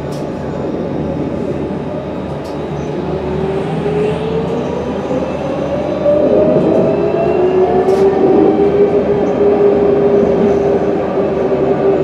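Alstom Citadis 302 tram running, its traction motors whining and rising in pitch from about three seconds in as it picks up speed, then settling into a steady whine. The running noise grows louder about halfway through, with an occasional sharp click.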